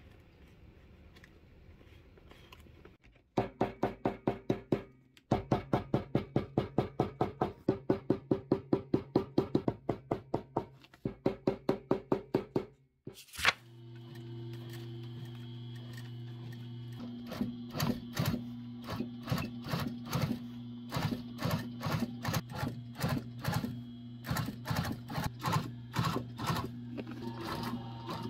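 Industrial sewing machine stitching a leather trim strip: a fast, even run of needle strokes at about five a second, then, after a short break, the motor's steady hum with slower, uneven stitch knocks as the leather is fed through.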